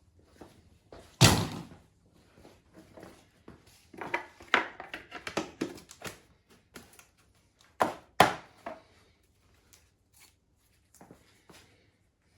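Hollow knocks and clatter of a fiberglass seat base being handled and pressed onto a motorcycle frame in a test fit: one loud thunk about a second in, a run of lighter knocks and scrapes, then two sharp knocks close together later on.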